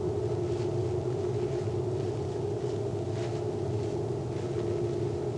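A steady low droning hum with a low rumble under it and a few faint soft rustles over it.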